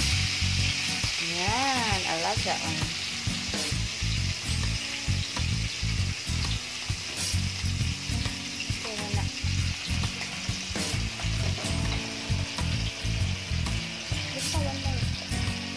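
Marinated chicken drumsticks and pork belly sizzling in butter on a hot ceramic grill pan, a steady crackling hiss. Sharp clicks from the tongs come now and then as more meat is laid on.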